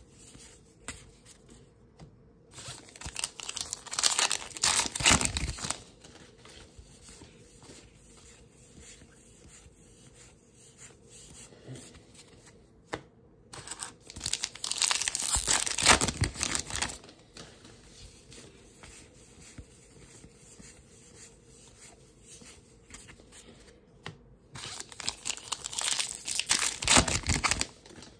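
Baseball card pack wrappers being torn open and crinkled: three loud stretches of ripping and crinkling, each lasting a few seconds, with quiet rustling of cards being handled in between.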